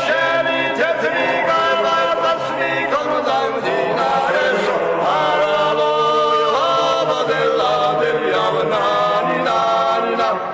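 Choral singing, several voices holding long chords that change every second or so.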